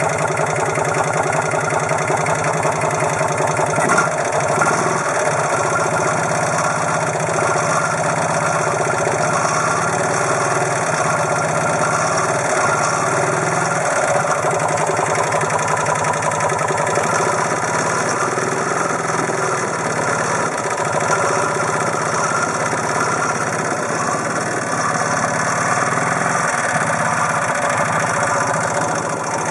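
Abnormal noise from a Fiat 500's fan: a steady mechanical whir with several held tones, unchanged throughout. One short click comes about four seconds in.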